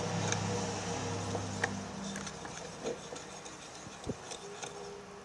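Spoon stirring a glue-and-water slime mixture in a container, with a few light clicks of the spoon, over a low steady hum that stops about two seconds in.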